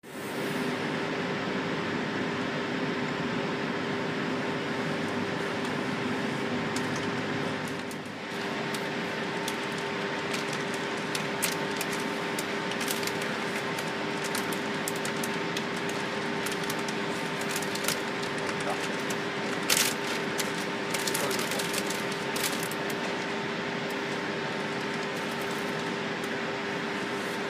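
Steady electric hum and running noise inside the leading panoramic car of an MOB Golden Pass electric train as it rolls slowly through a station, with a few faint clicks and knocks.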